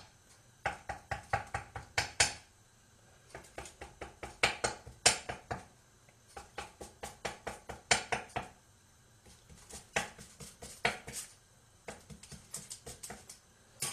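A fork pricking a sheet of puff pastry, its tines tapping the dish underneath. The taps come in quick runs of several a second, with short pauses between the runs.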